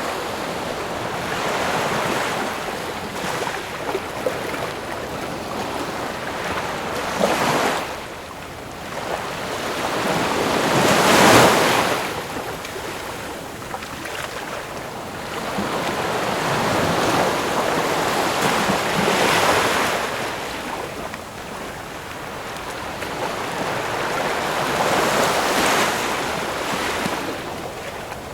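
Ocean waves breaking and washing on a shore in slow swells every several seconds, the biggest about eleven seconds in.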